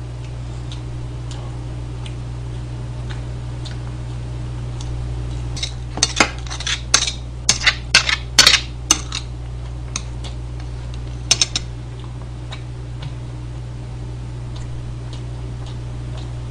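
Metal chopsticks clinking and scraping against a plate while stirring and lifting spicy stir-fried noodles: a run of sharp clicks from about six to nine seconds in, and a few more around eleven seconds. A steady low hum runs underneath.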